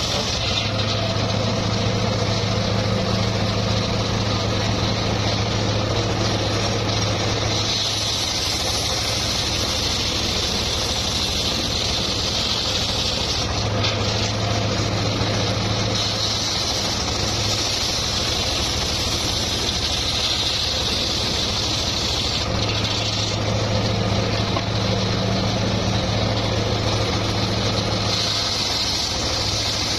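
Homemade engine-driven circular sawmill running steadily while sawing teak. A low hum drops in and out three times over the noise of the machine.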